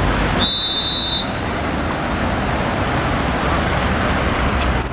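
Road traffic going by close at hand, vehicles rushing past in a steady noise. A brief high-pitched squeal sounds about half a second in and lasts under a second.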